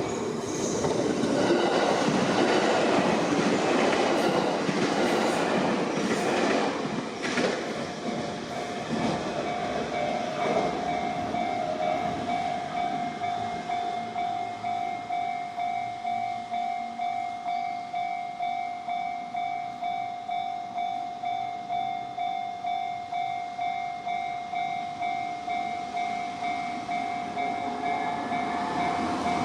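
Railway level crossing warning bell ringing steadily about twice a second, while a train runs over the crossing, loudest in the first ten seconds or so; after that the bell rings on alone.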